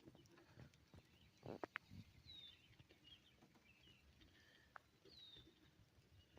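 Near silence with faint bird chirps, short downward-sliding calls repeated a few times. A few soft clicks and a brief rustle come about a second and a half in.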